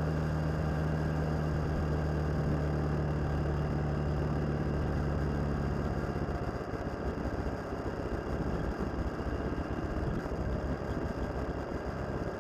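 Suzuki DL650 V-Strom's V-twin engine running at a steady cruise, heard from the motorcycle itself. About halfway through, the steady drone turns uneven and choppy as the bike slows.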